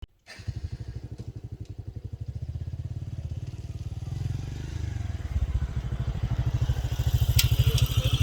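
An engine running with a fast, even low thumping that grows a little louder, with a few short sharp clicks near the end.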